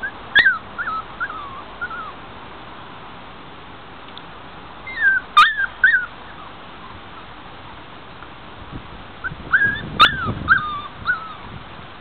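Young Schapendoes puppies whimpering and yipping in high-pitched, gliding cries, in three short bouts, over a steady background hiss.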